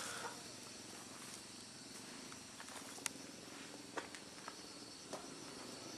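Faint outdoor ambience: a low steady hiss with a few soft clicks.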